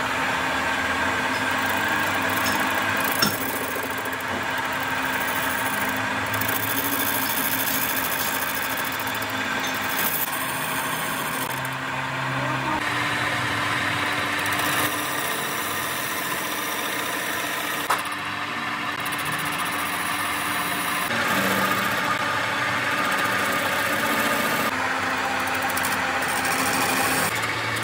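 Metal lathe running steadily, its motor and gearing humming while the cutting tool works the face of a rusty steel coupling plate. Two short sharp clicks, about three seconds in and again past the middle.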